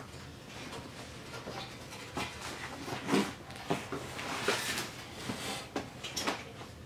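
Handling noise from a leather sport seat being turned over on a cardboard-covered floor: a string of short knocks, bumps and rustles, the loudest about three seconds in.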